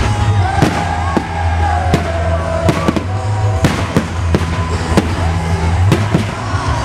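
Display fireworks bursting in a rapid run of sharp bangs, about one every half second, over music with a steady bass.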